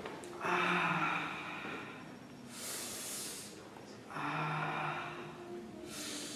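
A man breathing heavily, with two long, low moaning breaths out, each followed by a sharp, hissing breath in, about every three seconds.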